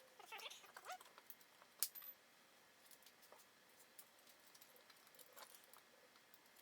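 Faint clicks and light metallic clinks of small furniture-assembly hardware being handled, with a short squeak in the first second and a sharp tick just under two seconds in.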